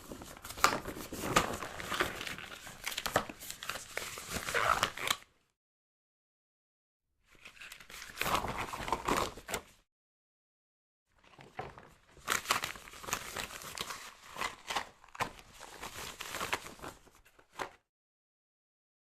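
Rubber gloves being handled and rubbed, a dense crinkly, squeaky crackle full of small clicks and snaps. It comes in three separate takes, the first about five seconds, the second about two and a half and the third about six, with dead silence between them.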